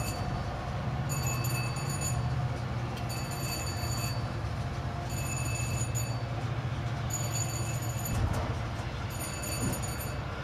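Railroad turntable rotating with a passenger car on its bridge: a steady low hum from the drive, with a high squeal that comes and goes about every two seconds.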